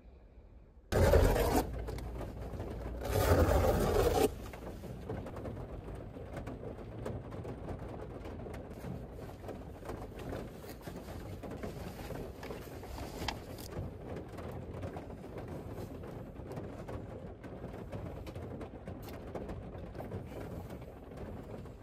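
Steady rain falling, with scattered drops ticking, after two short louder noisy bursts in the first few seconds.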